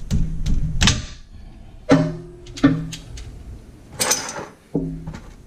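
Hand tools and a plastic oil drain pan being handled under a car at the rear differential drain plug: a series of separate knocks and clunks with short scraping drags, the loudest a scrape about four seconds in.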